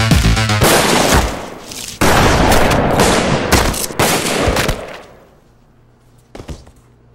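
Electronic music breaks off about half a second in, replaced by a long volley of handgun shots that runs for about four seconds and then dies away. One short knock follows near the end.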